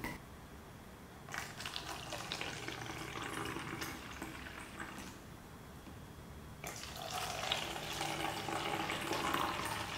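A drink is poured from a plastic bottle into clear plastic cups in two separate pours of a few seconds each, first into one cup and then the other, with a short pause between.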